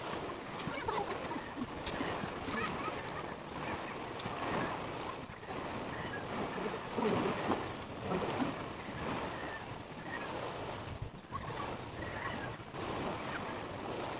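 Steady outdoor background noise that wavers in level, with no distinct events.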